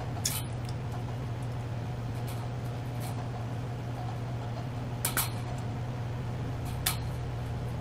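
Pliers crimping metal clips onto the galvanised wire mesh of a magpie trap's panels: a few short, sharp metallic clicks, one near the start, a quick pair about five seconds in and another about a second later. A steady low hum sits underneath.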